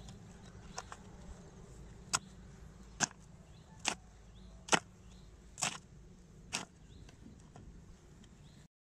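A hoe chopping into crumbly red soil in a planting hole, six or seven sharp strikes about one a second, the last one a couple of seconds before the end.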